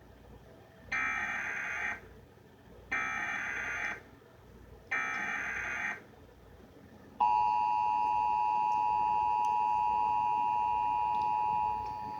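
Emergency Alert System broadcast: the SAME data header plays three times as one-second bursts of buzzing digital tones about two seconds apart. Then comes the steady two-tone EAS attention signal (853 and 960 Hz sounding together), which drops in level shortly before the end.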